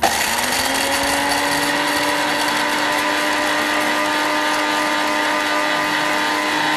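Anex electric grinder with a small dry-grinding jar, grinding whole black peppercorns. The motor winds up to speed in the first second, runs loud and steady, then is switched off.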